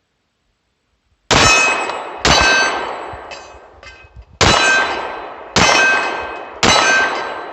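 Five shots from a SCCY DVG-1 9mm pistol, each a sharp crack followed by about a second of bright metallic ringing. Most shots come about a second apart, with a longer pause after the second. The pistol cycles each round without a stoppage, the sign that its feed problem seems fixed.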